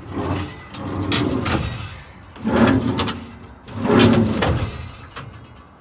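Metal tool drawers in a truck service-body compartment being pulled out and pushed back in on their slides, about three times, each slide a rumbling scrape of about a second.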